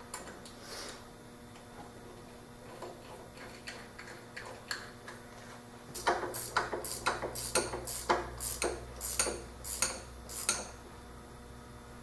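Sharp metallic clicks and clinks: a few scattered at first, then a run of about three a second for some four seconds over a low rumble, as metal parts of the antique lathe are worked by hand.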